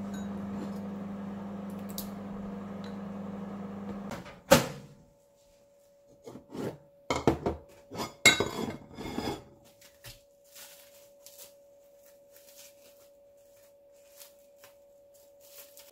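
A steady hum cuts off about four seconds in, followed by a sharp click. Then a ceramic plate and dishes knock and clatter on a stainless-steel counter, and plastic wrap crinkles faintly near the end.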